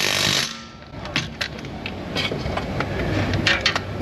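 Hand-tool work on a car's front suspension: a brief rush of noise, then scattered metallic clicks and knocks.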